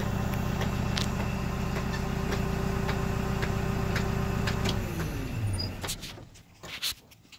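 Backhoe's diesel engine idling steadily, then shut off about five seconds in, its pitch falling as it spins down to a stop. A few light clicks and knocks follow.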